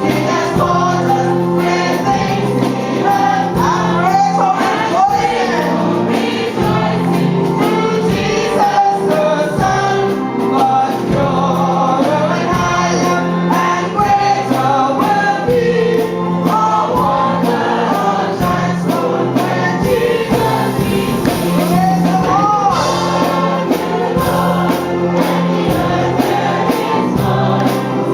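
Gospel music sung by a group of voices, with held low accompanying notes underneath.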